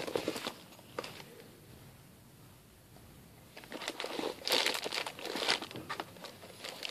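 Plastic bags crinkling and rustling as hands pack toiletries into a toiletry bag. Briefly at the start, quiet for a couple of seconds, then a longer stretch of crinkling from about three and a half seconds in.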